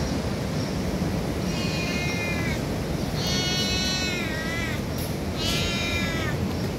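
Calico cat meowing three times, drawn-out calls that fall in pitch at the end: a hungry cat asking for food. A steady low rumble of background noise runs underneath.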